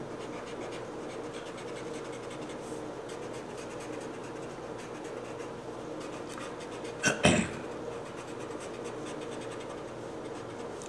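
Pencil scratching and tapping on paper in many quick short strokes, dotting in shading on a drawing. About seven seconds in comes one brief, louder double noise.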